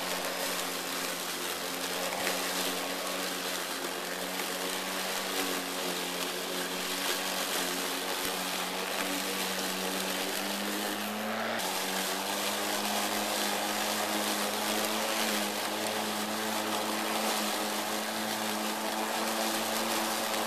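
Greenworks 80-volt battery self-propelled lawn mower running under load, its electric motor and blade cutting through tall, thick grass and weeds. There is a steady motor hum with the rush of the blade and grass over it, and the hum's pitch shifts about halfway through as the load changes.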